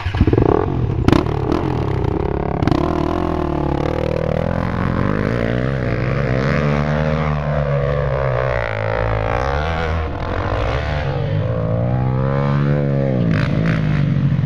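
ATV and dirt-bike engines revving hard, the pitch rising and falling over and over as they climb a steep dirt hill under load. The sound comes in suddenly at the start as the throttle opens.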